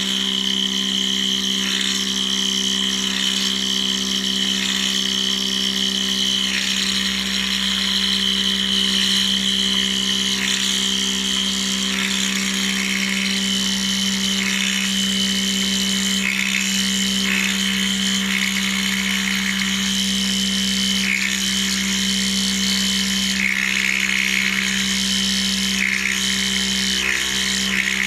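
CNC metal milling machine running: a steady low hum under a high whine that holds for the first several seconds, then wavers and breaks off and returns repeatedly.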